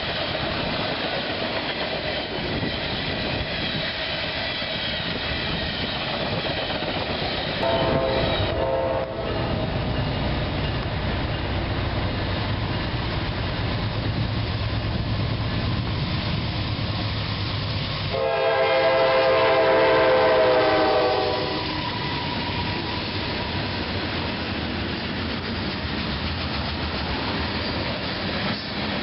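Train passing with steady rail noise. Its horn sounds a short blast about eight seconds in, then a louder, longer blast of about three seconds around eighteen seconds in.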